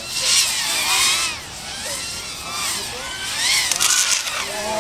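Several FPV racing quadcopters whining as they race, their motor and propeller pitch rising and falling with the pilots' throttle, the overlapping whines crossing one another.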